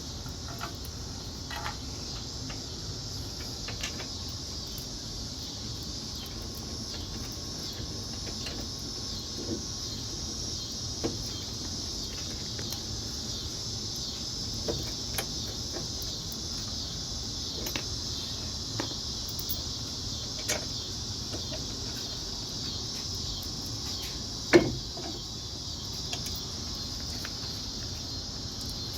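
Scattered metallic clicks and knocks of hand tools and bolts as a brake caliper is bolted back onto the front hub, with one louder knock about 24 seconds in, over a steady high-pitched hiss.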